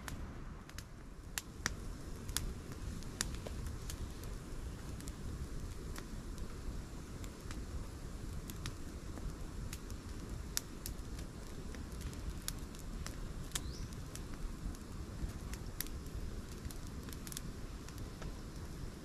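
Raindrops landing on a camping tarp: irregular sharp taps, a few each second, over a steady low rushing noise.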